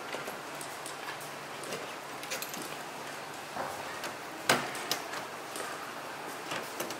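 Side serving hatch of a kitchen-car truck being unlatched and swung up open: small latch clicks and rattles, with one sharp knock of the hatch about halfway through.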